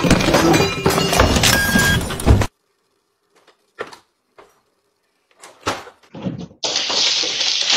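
Clattering and crashing of things pulled off a dining table with the tablecloth, cut off abruptly about two and a half seconds in. Then near quiet with a couple of faint knocks, and a sharp crash about five and a half seconds in as a flat-screen TV topples to the floor; a loud steady noise starts near the end.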